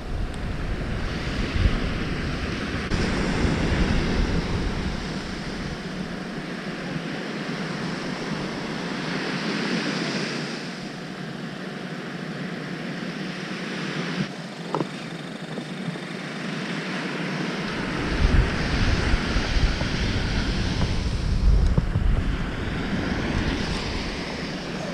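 Surf breaking on a sandy beach, a continuous wash that swells and eases every few seconds. Wind buffets the microphone in gusts, strongest near the start and again for the last several seconds.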